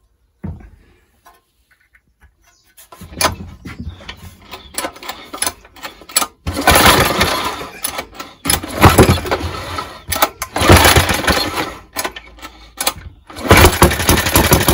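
An old Suffolk Punch lawnmower engine firing and running, its carburettor not yet cleaned. About three seconds in it catches, then runs in several loud bursts of a second or two, each breaking off suddenly.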